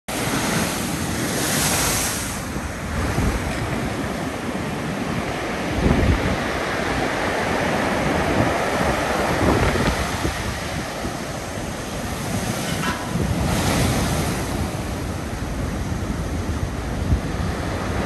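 Storm surf: heavy waves breaking and washing up the beach, with strong wind buffeting the microphone. Loud hissing washes come about two seconds in and again near fourteen seconds, and a heavy low thud about six seconds in.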